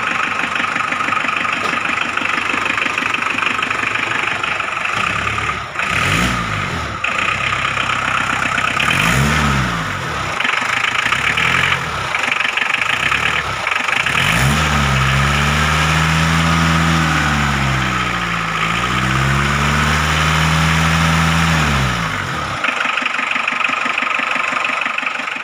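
Hindustan Motors Contessa diesel engine idling, then revved in a few short blips and held at higher revs for about eight seconds before dropping back to idle near the end. It is being run up to high rpm to check the newly fitted oil filter for leaks after an oil change.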